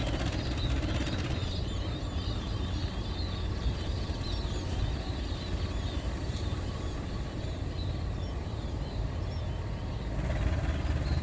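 GE CC 201 diesel-electric locomotive engine running with a steady low rumble as the train pulls away from the station. It grows louder about ten seconds in.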